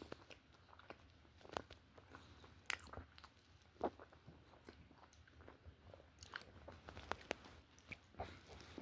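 A person chewing a mouthful of chocolate donut topped with nuts: faint chewing with scattered small clicks and crunches.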